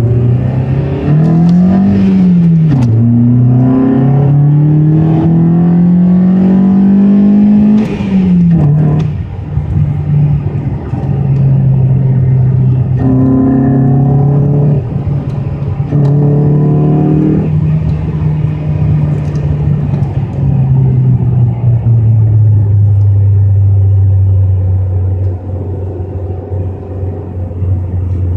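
2012 Hyundai Elantra's engine breathing through a homemade fiberglass air intake, heard from inside the cabin while driving. The engine note climbs and drops back twice in the first nine seconds, holds steady, then settles to a lower steady note for the last several seconds.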